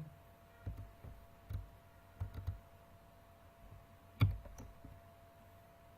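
A few scattered keystrokes on a computer keyboard, with a sharper, louder one about four seconds in, over a faint steady hum.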